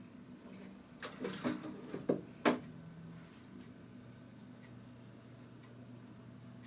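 A quick run of sharp clicks and knocks, like objects being handled, with the last and loudest about two and a half seconds in, over a faint steady low hum.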